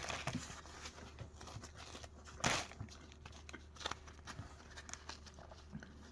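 Flatbread being torn by hand for eating: a run of small crackles and clicks, with a louder short tearing rustle about two and a half seconds in.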